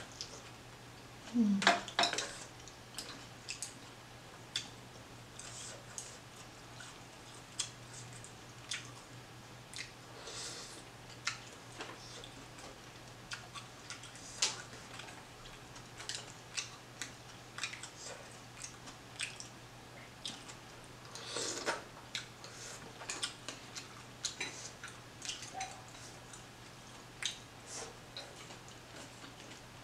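Close-miked eating sounds: irregular wet clicks and smacks from chewing shrimp and noodles, mixed with chopsticks clicking against a stainless steel pan. A louder mouthful sound about two seconds in.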